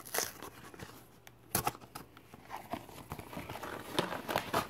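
Small cardboard snack box being torn open by hand along its perforated tab: scattered tearing and crinkling rasps, with one sharper snap about a second and a half in.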